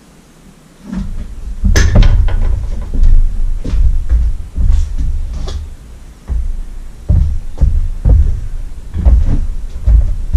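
Irregular knocks and heavy thumps of tools and engine parts being handled, starting about a second in, with a sharp metallic clatter shortly after.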